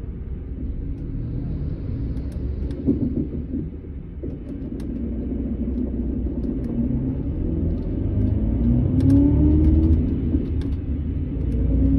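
Setra S 431 DT double-decker coach's diesel engine running with a low rumble. The engine note rises in pitch through the second half as the bus accelerates, after a brief drop in level about four seconds in. Light rattling clicks can be heard over it.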